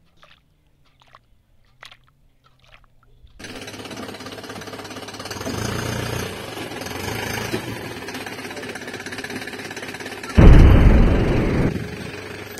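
A few faint drips of water, then a steady rattling machine noise starts abruptly about three and a half seconds in, with a much louder burst of about a second near the end.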